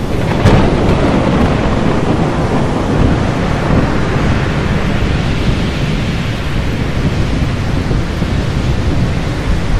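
Thunderstorm sound effect on a stormy-sea title sequence: thunder breaks in suddenly with a sharp crack about half a second in, then a steady, heavy rumbling rush of storm noise, rain and surf.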